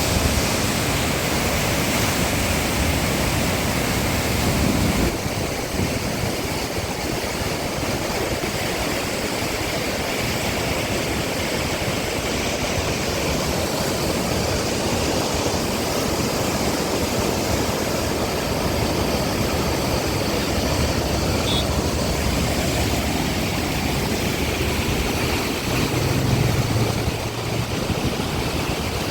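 Floodwater of the Baitarani River rushing past in a steady wash of noise. A brief low hum comes in near the end.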